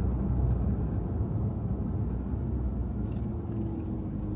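Steady low rumble of a car driving along a road, heard from inside the cabin: engine and tyre noise. A faint steady hum joins in about three seconds in.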